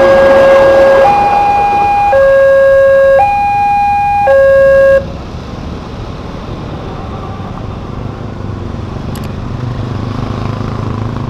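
Railway level-crossing warning alarm sounding an electronic two-tone signal, a low tone and a higher tone alternating about once a second, then cutting off suddenly about five seconds in. After it, motor vehicle engines run, with a low rumble building near the end.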